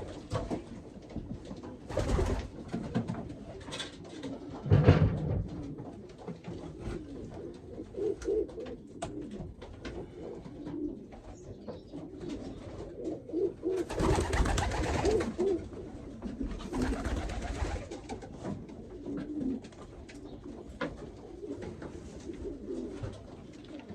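Homing pigeons cooing in a loft, with a few louder bursts of rustling; the loudest comes about five seconds in and a longer one about fourteen seconds in.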